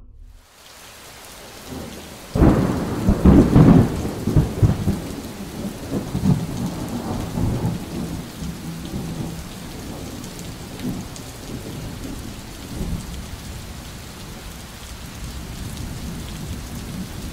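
Thunderstorm: steady rain with a thunderclap about two seconds in that rolls on for several seconds and fades, leaving the rain alone.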